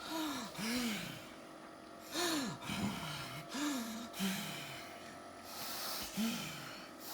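A child's laboured breathing with stridor: a run of short pitched crowing sounds that rise and fall on the breaths, several in quick succession, with gasping air between. It is the sign of a narrowed upper airway struggling to pull air in.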